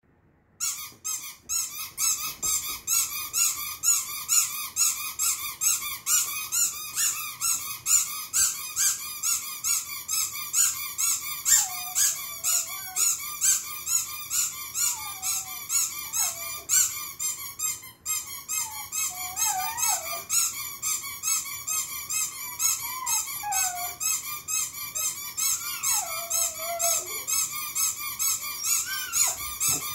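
Rubber squeaky toys squeezed over and over in a steady rhythm, about two squeaks a second. From about ten seconds in, an Italian greyhound howls along in wavering tones that slide up and down.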